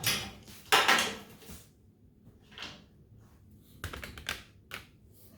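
Sharp plastic and metal clicks and clatters from a knife blade and a plastic range burner igniter switch being handled, as the blade is worked into the switch's groove to pry its front off. The two loudest clicks come in the first second, with a quick run of clicks about four seconds in and one more near the end.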